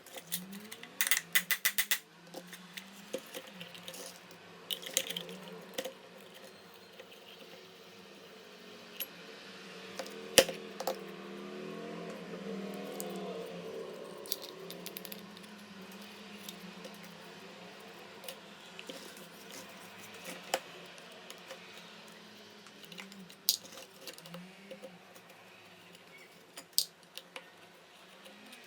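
Small metal parts of an old manual coffee grinder clicking and clinking as they are handled, with a rapid run of clicks about a second in and one sharp knock about ten seconds in, over a low steady hum.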